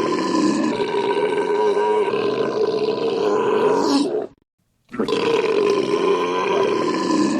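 A man's long, loud belch held at a steady pitch, which cuts off abruptly about four seconds in. After half a second of silence the same belch starts over.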